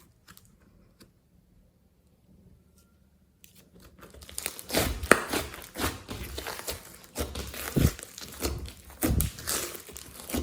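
Near silence for about three seconds, then glossy slime being squeezed and stretched by hand, giving irregular sticky crackles and sharp little clicks and pops.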